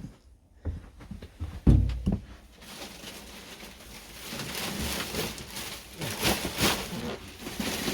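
A few knocks and a heavy thud, then a long rough scraping and rasping noise that grows louder towards the end, as a boat toilet is worked loose from its fixing.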